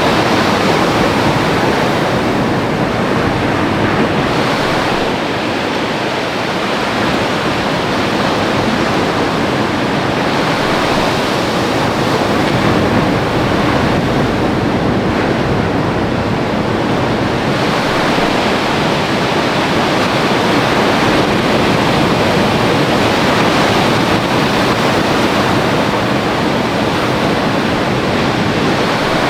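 Steady rush of ocean surf breaking, an even wash of noise that swells and eases slowly.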